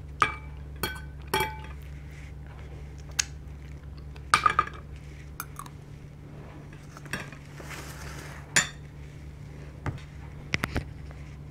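Metal cutlery clinking against ceramic plates: a scattered series of sharp clinks, a few ringing briefly, with a cluster of quick clinks about four and a half seconds in and more near the end.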